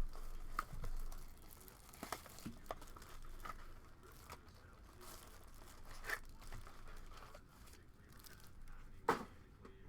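Plastic wrapping on a trading-card hobby box being torn and crinkled, with scattered light clicks and one sharper click near the end.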